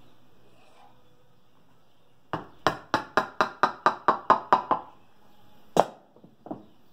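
A piston being tapped down through a tapered ring compressor into an air-cooled VW cylinder with the wooden handle of a mallet: about a dozen quick knocks, some five a second, as the rings slide into the bore. About a second later comes one louder single knock, then a couple of faint clicks.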